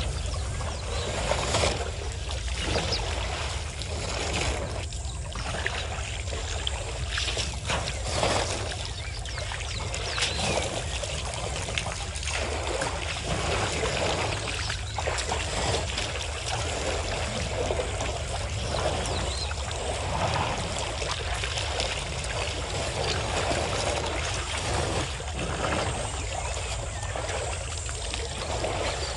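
African elephants drinking and wading in a waterhole: irregular splashing and trickling of water as they lift it in their trunks and pour it into their mouths, over a steady low rumble.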